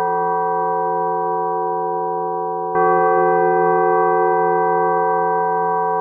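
Synthesized audio model of the 'Chasovoy' (hour bell) of the Novodevichy Convent, a 60-pood bell cast in 1628/29. It hums on many steady partials with a slow fade, is struck again about three seconds in, and rings on.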